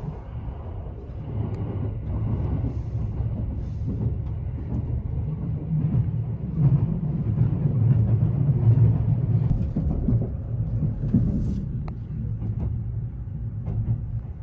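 HARUKA limited express train running on the line, heard from inside a passenger car: a steady low rumble of wheels on rail. It swells about halfway through, and a few faint clicks sound over it.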